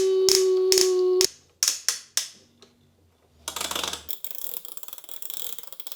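Plastic toy crane's ratchet mechanism clicking as it is turned by hand: evenly spaced clicks about three a second over a steady hum for the first second, a short pause, then fast, fine ticking from about halfway in.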